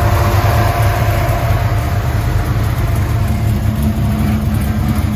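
Oldsmobile 442 muscle car engine idling with a steady low rumble.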